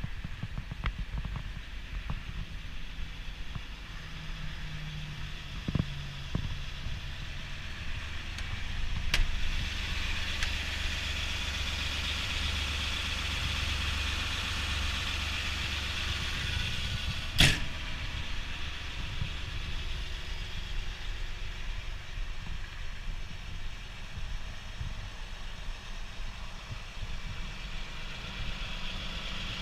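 Caterpillar 336E excavator's C9.3 diesel engine idling steadily, with a louder hiss riding over it through the middle stretch. A single sharp knock comes a little past halfway.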